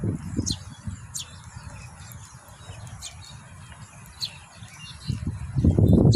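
Eurasian tree sparrows giving several short, high single chirps spaced a second or so apart, over a low rumbling noise that grows loudest near the end.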